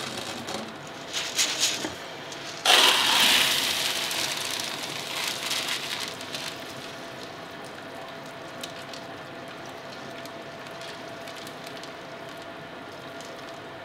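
Cooking water and cooked hempseed poured from a stainless-steel pan into a plastic sieve in the sink to drain: a splashing rush starts suddenly about three seconds in and dies down over the next few seconds, leaving a quiet trickle.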